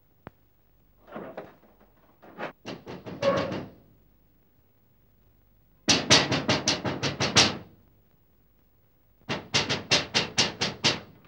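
Someone pounding on a door in bursts of fast knocks, several to a burst. The last two bursts are the longest and loudest.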